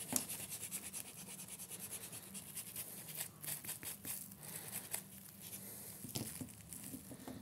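Rustling and scratching from hands working a glued rope wig base on a doll's head, with irregular small clicks throughout, over a faint steady low hum.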